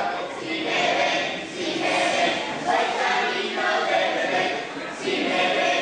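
A group of children singing together in unison, in short phrases of about a second each.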